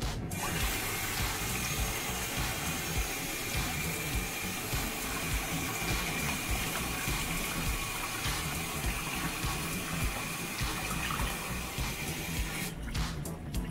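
Kitchen tap running onto boiled somen noodles in a stainless steel colander bowl in the sink, with a hand stirring the noodles through the water to rinse them. The water starts just after the beginning and is turned off near the end.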